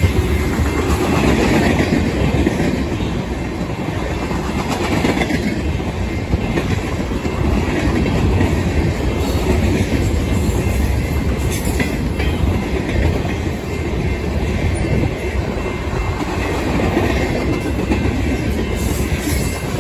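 Cars of a mixed freight train rolling past at trackside: a steady rumble of steel wheels on the rails.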